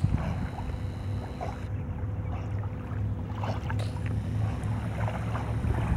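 Wind buffeting the microphone: a steady, uneven low rumble with no distinct events.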